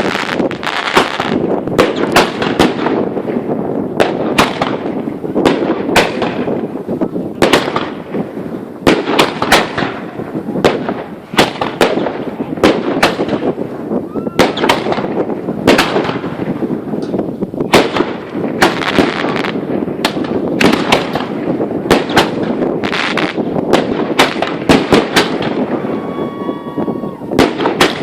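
Fireworks display: a dense barrage of aerial shell bursts, sharp bangs several a second over continuous crackling, with a short pitched whistle near the end.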